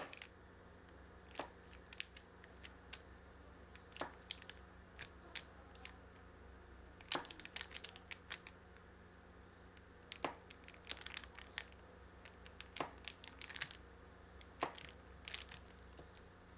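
Kitchen knife slicing through a log of softened butter on aluminium foil: irregular light clicks and crinkles as the blade presses down and meets the foil, over a faint steady hum.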